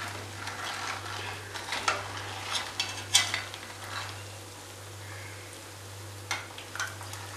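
Ribbon murukku frying in hot oil with a steady sizzle, while metal spoons scrape and clink against the pan as the fried pieces are lifted out.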